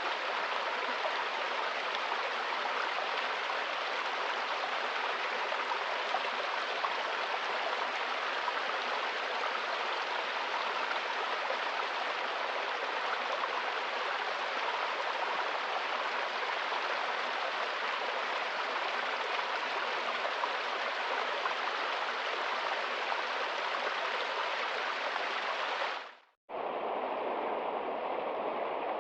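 Steady rush of flowing water from a stream. About 26 seconds in it fades out for a moment, and a different, lower-sounding running water fades in.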